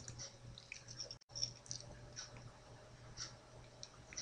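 Faint computer mouse clicks, a few scattered single clicks, over a low steady hum.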